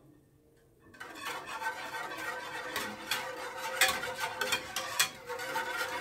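Wire whisk stirring broth in a nonstick pan: a steady run of light clicks and scrapes of the wires against the pan, starting about a second in.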